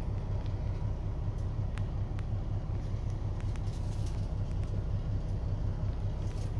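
Semi truck's diesel engine idling steadily: an even low rumble, with a few faint clicks over it.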